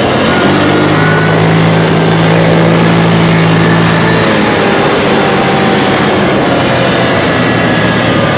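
Kawasaki Teryx 750 side-by-side's V-twin engine running steadily while driving along a dirt and gravel track, its note holding even for the first few seconds and then shifting about four seconds in.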